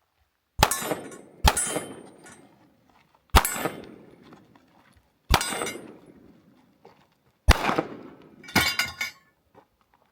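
Six pistol shots from a Fusion Firearms XP Pro 1911/2011, unevenly spaced over about eight seconds, each with a ringing tail.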